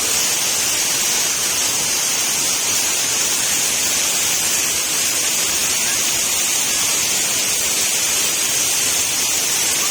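Waterfall: falling water rushing in a steady, loud hiss.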